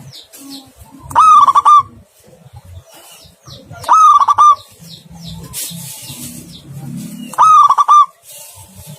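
Zebra dove (perkutut) cooing: three loud calls about three seconds apart, each a short broken phrase of a few quick notes. Faint chirping of small birds in between.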